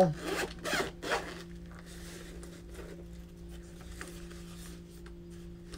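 Zipper on a semi-hard shell carrying case being pulled open in a few quick strokes over the first second and a half. After that come only faint handling sounds over a steady low hum.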